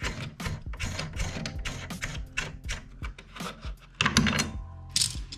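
A hand working at the nut on an old tub faucet's copper supply shank under the tub deck: irregular small metal clicks, taps and rubbing, with a sharper knock about four seconds in.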